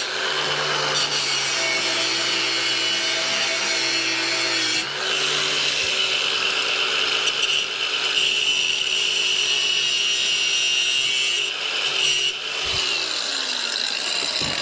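Cordless angle grinder with a cutoff wheel running against the steel frame of a mini bike, a steady motor whine with harsh metal-cutting hiss. The motor pitch dips briefly under load about five seconds in and sags again near the end.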